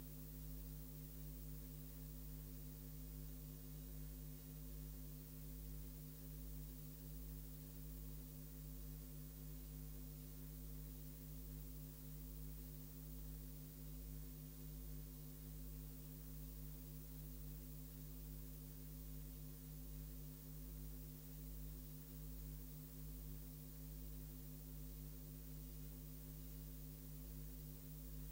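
Steady low electrical hum with several higher steady tones above it and a faint hiss, unchanging, with no sound of the race itself: the hum of the recording or tape-transfer chain.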